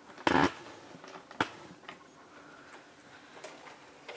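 Handling noise as a Blu-ray player is pulled out of its white foam packaging and lifted: a short rustling scrape about a third of a second in, a sharp click about a second later, then faint taps and rubs.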